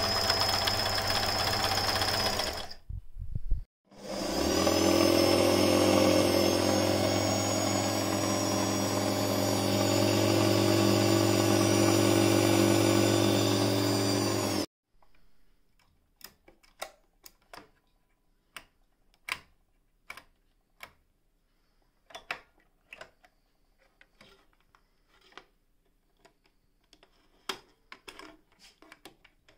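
Singer 416 electric sewing machine running at speed, its motor and needle mechanism whirring steadily; it stops briefly about three seconds in, runs again for about ten seconds, then cuts off suddenly. After that, scattered light clicks and knocks as the stitch-selector dial on the machine is turned.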